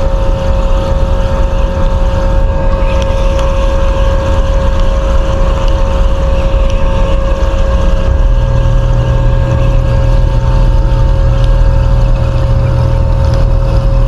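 Ship's engines running: a steady low drone with a constant hum above it, and a deeper note joining about eight seconds in.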